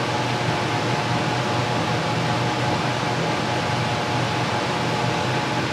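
CWI-DAC1400 shop air cleaner running at full speed: a steady rush of air from its fan with a low hum under it.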